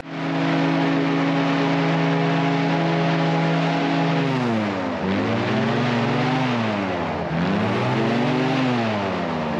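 Alligator airboat's engine and propeller running at a steady pitch for about four seconds, then easing off and opening up again twice, the pitch falling and rising with the throttle.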